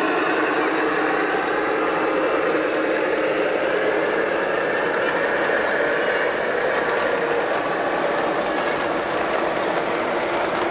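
Model freight train running along the layout track, its cars rolling past with a steady hum that drifts slowly in pitch.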